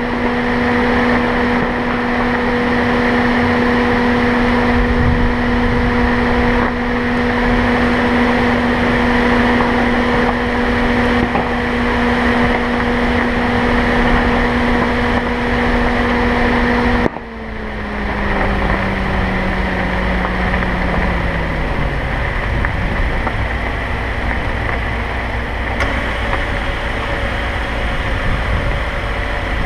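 Car driving along a road: steady engine hum over road noise. A little over halfway through the hum drops suddenly, then sinks lower over a few seconds, as when the driver eases off the throttle.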